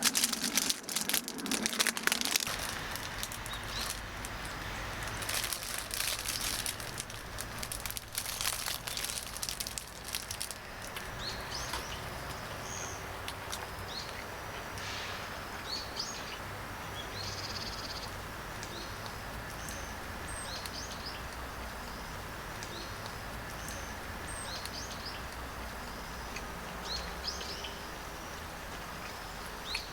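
Small birds chirping at scattered intervals over a steady low hum. A dense spell of crackling and clicking fills roughly the first ten seconds.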